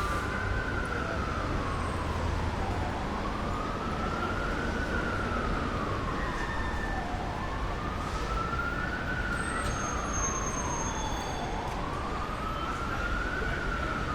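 Emergency vehicle siren in a slow wail, its pitch rising and falling about once every four seconds, over the steady rumble of city street traffic.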